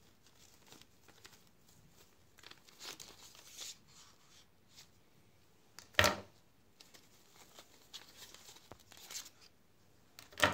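Plastic bag rustling and crinkling in the hands as a bag of spare drone propellers is opened, with a sharp clack about six seconds in and another at the very end as the plastic propellers are handled.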